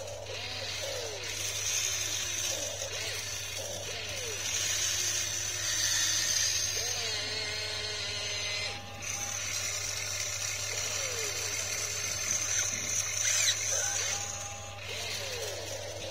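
Electric motors of a radio-controlled excavator whining as it works its boom, arm and bucket, the pitch rising and falling with each movement.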